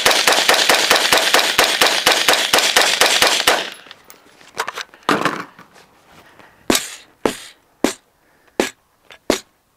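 AR-15 rifle fired in a rapid string of shots that stops suddenly about three and a half seconds in. Then the rifle's barrel is struck hard against an OSB board several times, about half a second apart.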